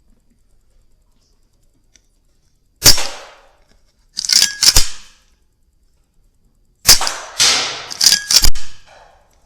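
Weihrauch HW100 .22 pre-charged air rifle firing: a sharp crack about three seconds in, then more sharp cracks and clacks over the next few seconds, with a cluster of four or five near the end.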